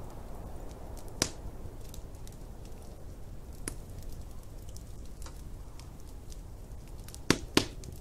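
Wood fire crackling with scattered sharp pops, the two loudest close together near the end, over a steady low rumble of snowstorm wind.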